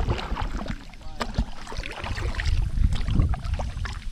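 Kayak paddling: paddle splashing and dripping water with scattered small knocks, over a low rumble of wind on the microphone.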